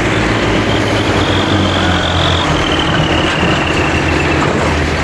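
Diesel tractor engines of several tractors running together under load, hauling a heavily loaded sugarcane trolley, with a steady low engine note. A faint high whine rises over it for a second or two around the middle.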